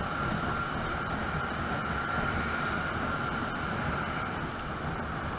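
A motorised two-wheeler riding steadily along a road, heard from on the bike: a low engine and road rumble under a rushing noise, with a steady high whine.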